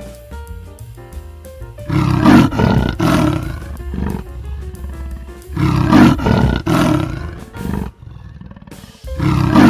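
A large animal roaring in three loud bouts a few seconds apart, each made of two or three pulses, over light instrumental music.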